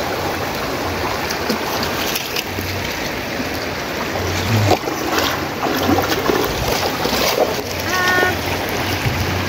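Shallow river rushing steadily over a rocky bed, with a few small splashes about halfway through. A short high tone sounds briefly near the end.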